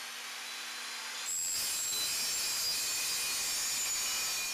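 Benchtop table saw running and cutting through marine board. It runs with a steady motor hum, then from about a second in the blade bites and a loud, even hiss of the cut holds until it starts to fall away at the very end.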